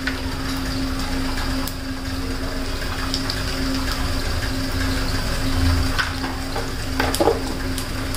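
Cumin seeds sizzling steadily in hot oil in a kadhai, with a steady low hum underneath and a few faint clicks.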